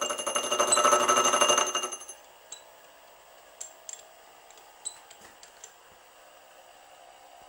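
Gear cutter on a milling machine cutting a tooth into a metal gear blank on a dividing head: a fast, ringing chatter that stops about two seconds in. A few faint light clicks follow.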